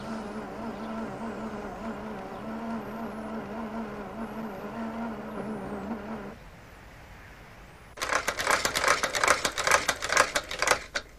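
Trick walking suitcase's drive motor and toothed-belt tracks running with a steady, slightly wavering mechanical hum for about six seconds, then stopping. About two seconds later a fast, dense clatter of clicks starts.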